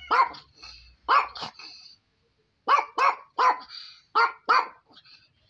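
Tan dog barking repeatedly from inside its cage: about eight short barks in two runs, broken by a brief pause about two seconds in.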